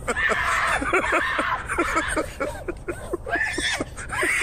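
People laughing hard in rapid, high-pitched bursts of cackling laughter, several per second.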